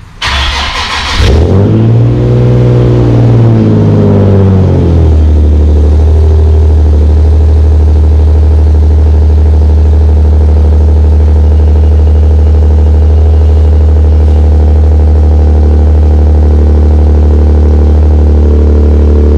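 Nissan 370Z's 3.7-litre V6 starting for the first time after a high-flow catalytic converter install: a second of starter cranking, then the engine catches, flares up in revs and drops back over a few seconds. It then settles into a steady idle through the high-flow cats and cat-back exhaust.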